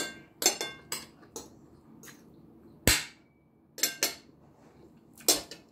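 Metal spoon clinking and knocking against a plate while eating: about ten sharp separate clinks, one heavier knock about three seconds in.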